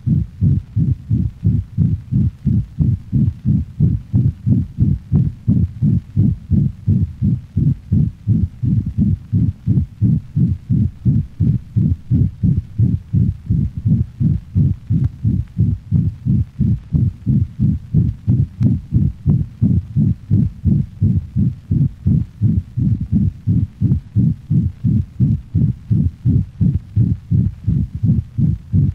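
Dog's heart heard through a stethoscope: quick, regular beats with a harsh murmur filling each systole. This is the holosystolic murmur of a ventricular septal defect, blood driven from the left to the right ventricle through the hole in the septum.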